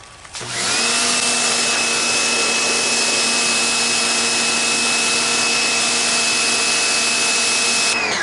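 Topshak TS-HPW4 electric pressure washer starting up about half a second in: its motor and pump rise quickly to speed, then run steadily with the hiss of the water spray through a wider nozzle tip. It winds down just before the end.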